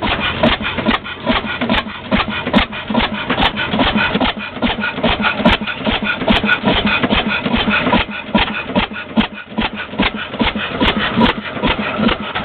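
13 hp Ball oilfield engine running, with a quick, even beat of exhaust and valve-gear knocks.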